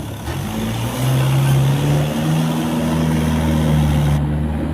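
Tractor diesel engine running, picking up revs about a second in and then holding a steady, higher engine note.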